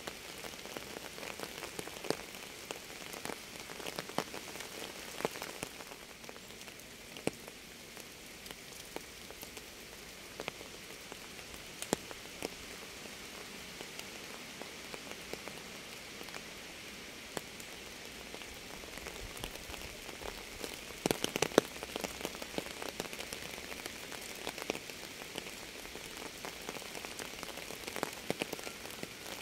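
Steady rain: an even hiss of rainfall with many distinct drops ticking and splatting on a surface, and a short run of louder drop hits about two-thirds of the way through.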